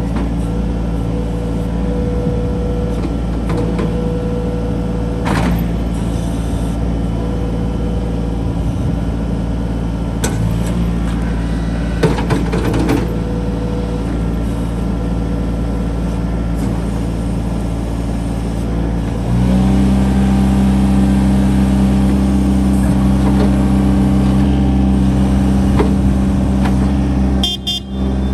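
Gehl R105 skid steer's diesel engine running steadily, with a few short knocks and clunks. About two-thirds of the way through, the engine steps up to a louder, higher-revving steady note, which dips briefly near the end.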